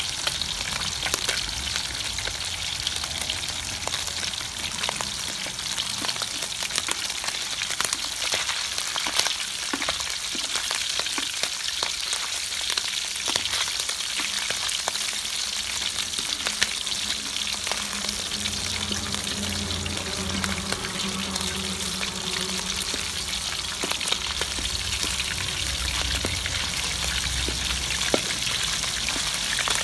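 Whole small fish deep-frying in hot oil in a steel wok: a steady sizzle with a dense crackle of popping oil, with occasional scrapes and taps of a metal spatula moving the fish.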